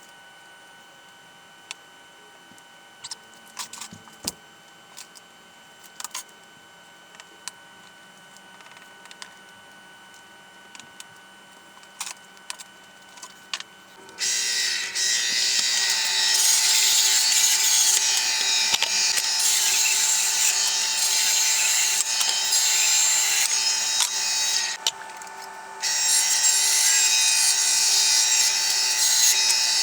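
Scattered knocks and clicks of wood and tools being handled, then about halfway through a power tool starts cutting wood with a loud, steady hiss over a steady motor tone. Near the end the cutting noise stops for about a second while the motor keeps running, then resumes.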